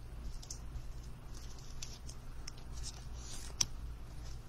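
Trading cards handled in the hands: soft scattered rustles and light clicks of card stock, with a longer sliding hiss about three seconds in. A low steady hum runs underneath.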